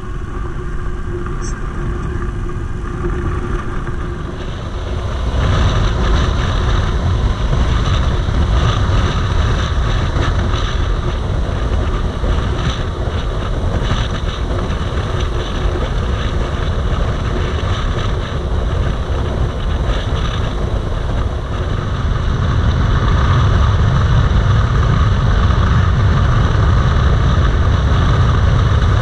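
Wind rushing over the camera microphone with the running engine and road noise of a Yamaha MT-07 parallel-twin motorcycle under way. The noise is steady, growing louder about five seconds in and again near the end.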